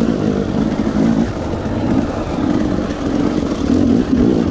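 Off-road dirt bike engine running hard over rocky trail, revving up and down repeatedly as the throttle is worked.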